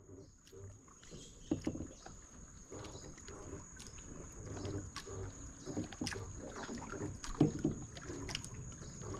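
Small waves lapping and slapping against a wooden dock, with a few sharp knocks and clicks scattered through it.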